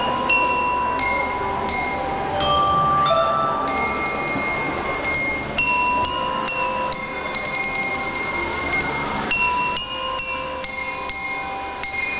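Drum and lyre corps' mallet section, bell lyres and keyboard-style metal bar instruments, playing a slow melody. Struck notes ring on for a second or more, several sounding together.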